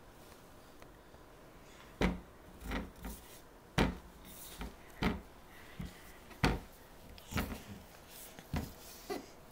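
Irregular knocks and bumps against a wooden baby crib, about eight of them, starting about two seconds in, as a baby kicks and rolls against its sides and slats.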